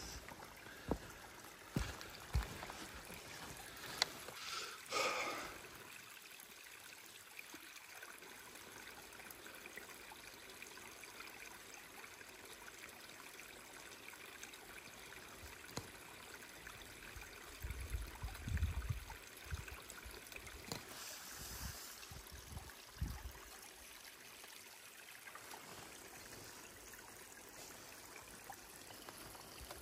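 Faint running or trickling water against a steady outdoor hiss. A short louder swish comes about five seconds in, and a few low thumps about two-thirds of the way through.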